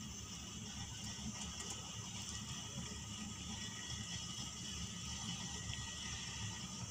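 Chairlift's haul cable and pulley mechanism, rattling and clicking steadily as the chair runs along the line.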